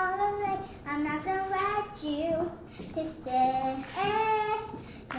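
A young girl singing unaccompanied, a string of short held notes that bend and waver in pitch, with brief breaks between phrases.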